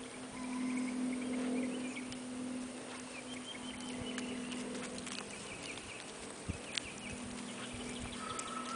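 Outdoor ambience: a steady low hum under faint bird chirping, with scattered light footsteps and taps on a gravelly lane, a few of them sharper near the middle.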